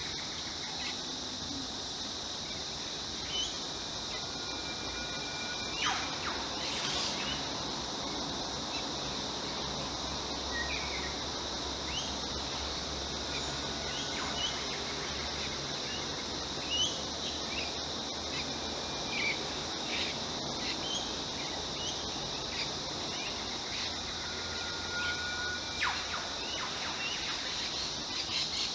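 Steady high-pitched insect drone with scattered short bird chirps over it, and a held whistled bird note a few seconds in and again near the end.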